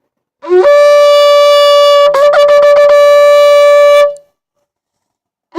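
Shofar blown in one long blast. The note scoops up into a steady tone, breaks into a rapid stutter of about half a dozen quick interruptions midway, then holds again and stops. A new blast begins right at the end.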